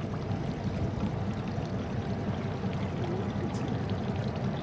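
Steady rush of water around a small fishing boat, with a low, even rumble underneath and no break or change.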